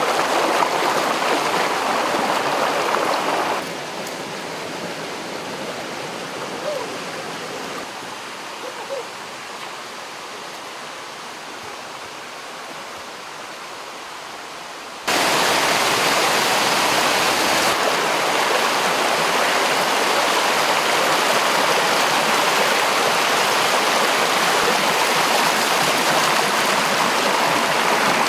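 Forest stream rushing over rocks, a loud, steady hiss of water. About four seconds in it drops to a softer, more distant rush, then cuts back suddenly to full loudness about halfway through.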